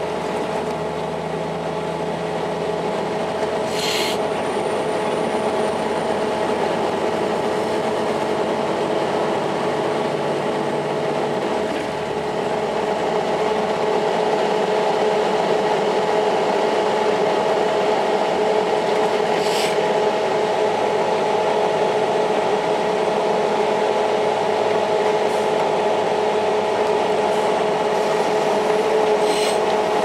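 Inside a 2002 Blue Bird CS bus under way: its Cummins ISL9 diesel and Allison B400R automatic transmission running with road noise and a steady multi-tone hum, getting a little louder about twelve seconds in. A few short rattles cut through now and then.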